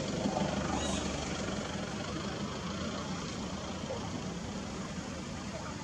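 Steady low mechanical hum over a constant background noise, like an idling engine or distant traffic, with a few faint short high chirps.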